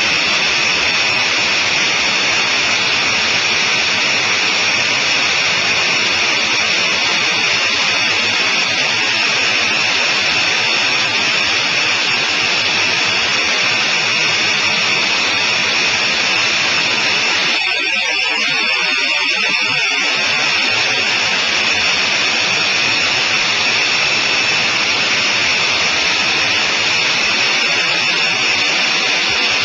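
Engine and wind noise inside the cockpit of a Sonerai I single-seat light aircraft in flight, a steady loud drone with a high steady whine. A little past the middle the lower part of the sound thins out for about two seconds, then returns.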